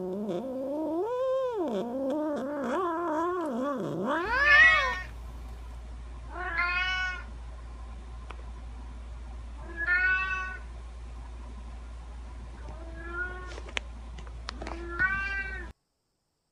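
Domestic cats meowing. First comes one long, wavering meow lasting about four seconds. Then about five separate short meows follow, a few seconds apart, over a faint low hum, and they stop shortly before the end.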